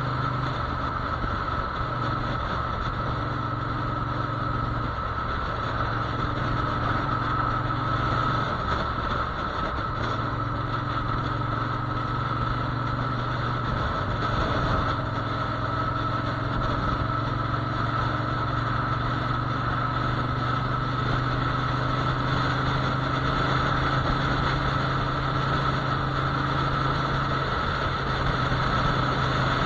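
Motorcycle engine running while riding at road speed, its note shifting a few times with changes of throttle, over a steady rush of wind and road noise.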